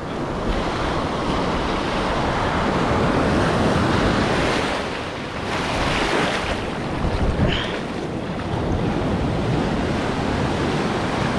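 Ocean surf washing on the beach, swelling louder a couple of times, with wind buffeting the microphone.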